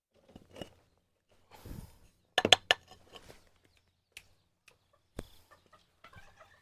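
Chickens clucking softly with a few sharp knocks. The loudest is a quick cluster of knocks about two and a half seconds in, with a single knock a little after five seconds.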